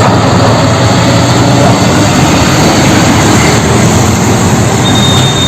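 Loud, steady heavy truck engine sound effect for a tanker truck, with a brief high tone near the end.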